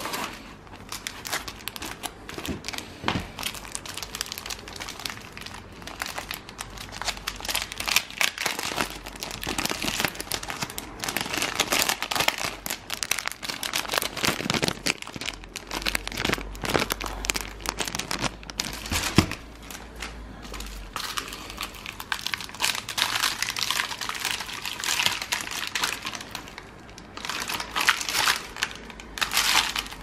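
Foil-backed sheets of rubber bicycle puncture patches being handled, crinkling and crackling irregularly.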